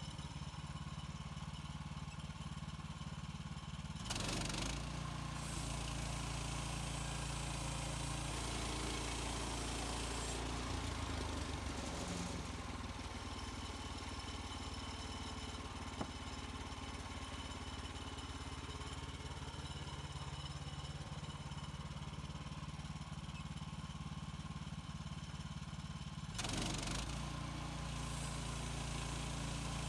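HM130 Max portable sawmill's gas engine running steadily. About four seconds in the sound grows fuller and hissier as the bandsaw blade cuts through a white pine log, and it settles back to the plain engine note near the end.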